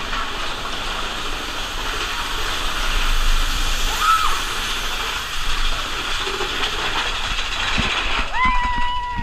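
Mine-train roller coaster running along its track with a steady rushing noise. A brief squeal comes about four seconds in, and near the end a rider's long high yell starts as the train comes out of the tunnel.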